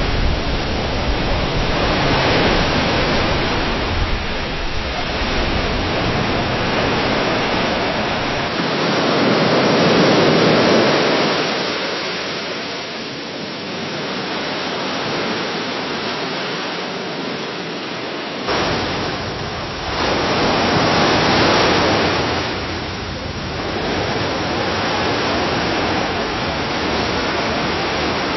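Gentle waves lapping and splashing against a dock: continuous water noise that swells and ebbs every few seconds. The character changes abruptly twice, about 9 and 18 seconds in, as one recording gives way to the next.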